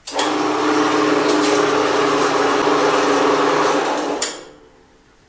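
Horizontal metal-cutting band saw's electric motor and blade running steadily with a hum, then switched off about four seconds in and coasting to a stop within half a second.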